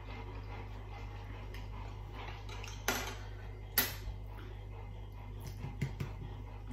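Metal forks clinking against a ceramic dish while eating noodles: two sharp clinks about a second apart near the middle, then a few lighter taps near the end.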